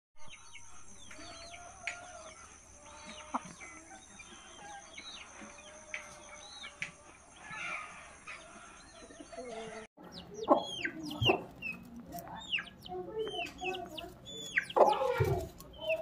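Chickens chirping and clucking: many short, high chirps that slide down in pitch, coming quicker and louder in the last few seconds.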